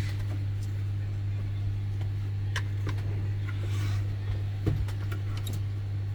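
Steady low electrical hum with a few light clicks and taps of small parts and tools being handled on a repair bench, and a brief hiss about four seconds in.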